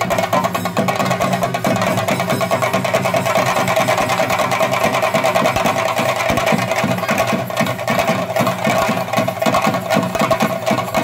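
Chenda drums played together in a fast, dense, unbroken rhythm of strokes, the percussion music that accompanies a theyyam dance, with steady held tones underneath.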